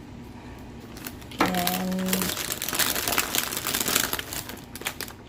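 Plastic packaging being crinkled and handled, a dense run of fast crackling that starts about a second and a half in and fades out near the end.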